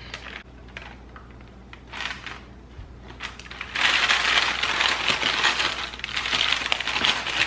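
A spatula scraping thick batter out of a glass mixing bowl with a few light clicks. About four seconds in, parchment paper starts crinkling loudly and keeps rustling as its edges are gripped and pressed in a baking dish.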